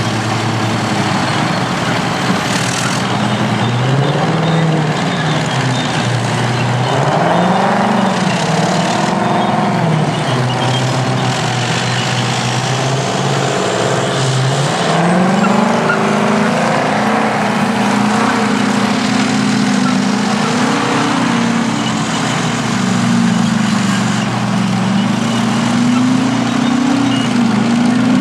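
Heavy diesel engines of vintage earthmoving machines working under load. The revs rise and fall again and again, then climb and stay higher in the second half.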